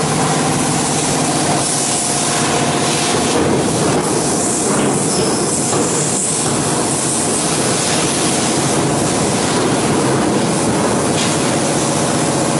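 CNC plasma cutter at work: a loud, steady hiss of the plasma arc and its compressed air, with a steady machine hum underneath.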